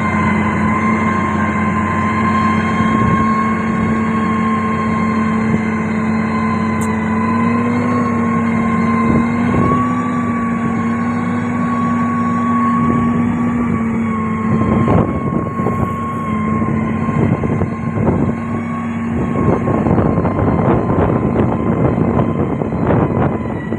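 Heavy road-construction machinery running at a steady speed, its engine note carrying a steady whine that lifts slightly about a third of the way in. In the second half, irregular rattling and knocking join in.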